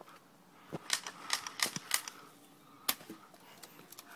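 Airsoft guns firing: about six sharp snapping pops at uneven intervals in the first three seconds, then quieter.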